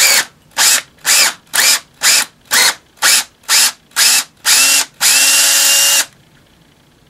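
Makita LXT cordless drill boring into cast iron with a No. 9 tap drill, enlarging a pilot hole. The trigger is pulsed in short spin-ups about two a second, then the drill runs steadily for about a second and stops about six seconds in.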